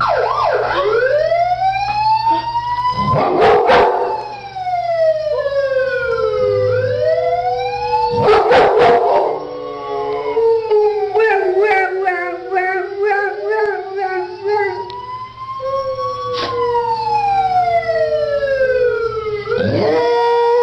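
A dog howling and yowling in long, slow, rising and falling pitch glides, with a warbling stretch in the middle and two short, loud, harsh outbursts about three and a half and eight and a half seconds in.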